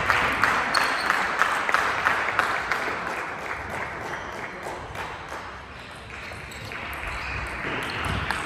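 A table tennis ball ticking sharply off the bats and the table during serve and rally, with the steady noise of a large hall behind it.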